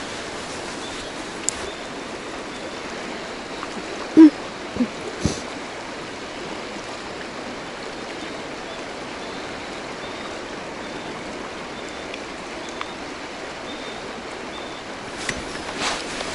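Fast-flowing river water rushing steadily, with a few short knocks about four seconds in, the first of them loud.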